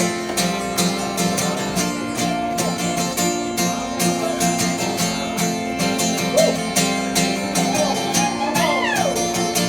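Acoustic guitar strummed in a steady rhythm, chords ringing: the instrumental intro of a song before the singing starts. The guitar is a 1985 acoustic.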